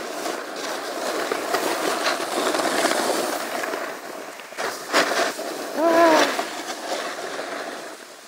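Snowboard sliding and scraping over groomed snow, with a couple of sharp knocks about five seconds in and a short vocal cry about six seconds in.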